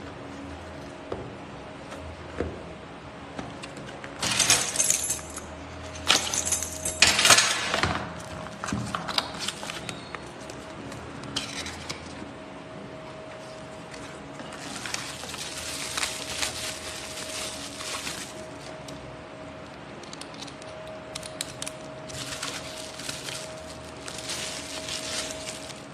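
Small metal parts clinking and rattling in bursts as they are handled, loudest a few seconds in, over a faint steady hum.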